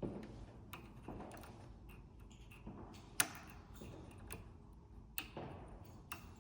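Faint, irregular small metal clicks and taps of a locksmith's pick tool working the pins of a door lock cylinder, with two sharper clicks about three and five seconds in.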